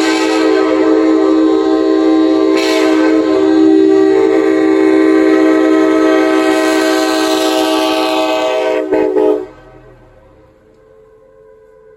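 Nathan AirChime K5LA five-chime train horn sounding a long, loud, steady chord that cuts off sharply about nine seconds in. A much fainter horn chord carries on after it.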